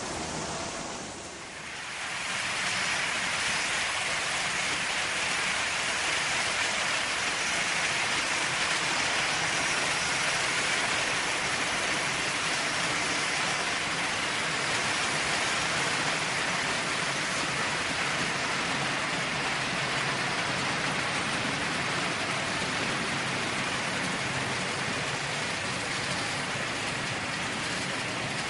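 A Märklin HO model freight train of hopper wagons rolling over metal track: a steady, even rolling noise of the wheels on the rails.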